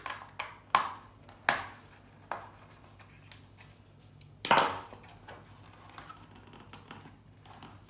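Sharp clicks and knocks of a small screwdriver and loose screws against the metal chassis of a TV receiver box as it is unscrewed and handled. There is a handful of separate clicks, the loudest one ringing briefly about halfway through.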